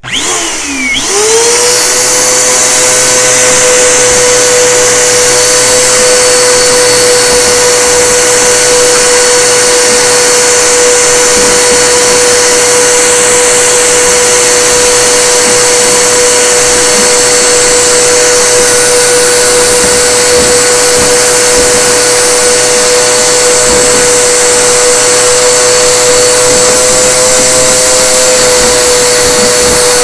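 Bissell PowerForce Compact upright vacuum cleaner switched on, its motor whining up to speed in about a second and then running steadily. It is sucking through its hose, which is fitted snugly into the dryer vent.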